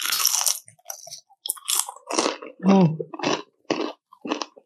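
A loud crunch as a bite is taken from crispy fried chicken skin, then steady crunchy chewing, a crunch about every half second.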